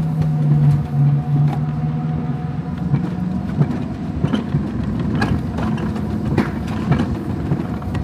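Mountain coaster sled running down its steel tube rails: a steady rumble of the wheels with scattered clacks and knocks, and a low hum that fades out about three and a half seconds in.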